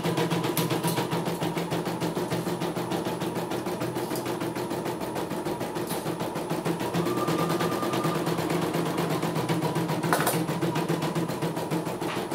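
CNY E900 computerized embroidery machine stitching a design, its needle running at a rapid, even rhythm. A short high tone sounds about seven seconds in, and a sharp click about ten seconds in.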